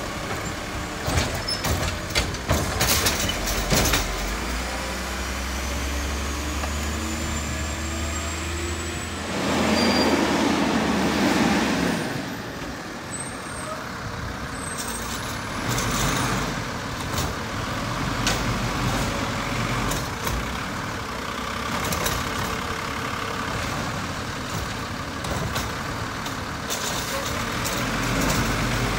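Diesel garbage truck running, with sharp knocks in the first few seconds and a loud rushing burst about ten seconds in.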